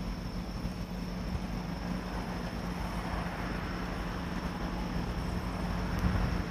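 Steady distant rumble of city traffic and railway, with a low steady hum and a light hiss.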